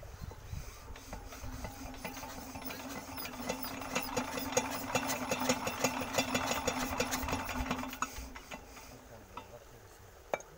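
Old single-cylinder diesel engine turning over and firing in fast, regular knocks that build up louder, then die away about eight seconds in. This is a start attempt after its intake was warmed with a flame.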